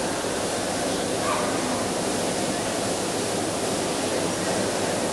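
Steady hiss with a faint murmur of crowd voices in a large hall.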